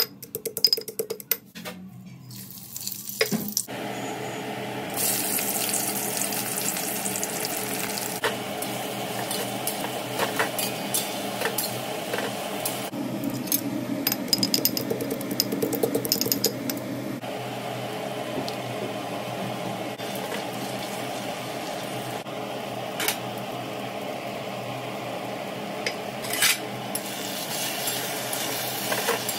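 A metal pestle pounding whole spices in a metal mortar, a quick run of sharp knocks for the first few seconds. Then a steady sizzle of frying in a metal kadai goes on, with another spell of pounding in the middle and odd clinks and scrapes of a metal spatula against the pan.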